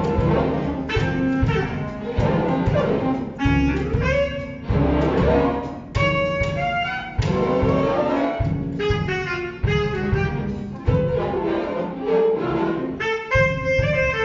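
Live youth orchestra of strings, brass and double bass playing a jazz tune arranged for orchestra, with a regular beat in the low end under sustained and short figures from the strings and horns, heard from the audience in an auditorium.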